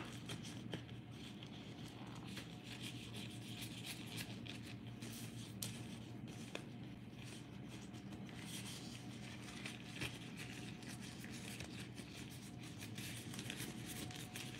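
Clear disposable plastic gloves rustling and crinkling faintly as they are pulled onto the hands, with a few small clicks, over a low steady hum.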